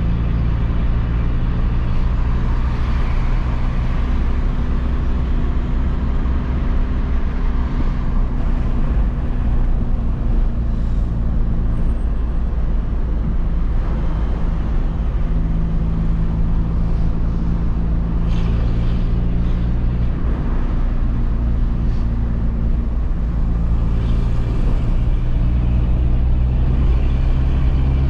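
Peugeot 206's 1.4 four-cylinder engine running through a straight-pipe exhaust with no muffler, a steady drone with small shifts in pitch now and then.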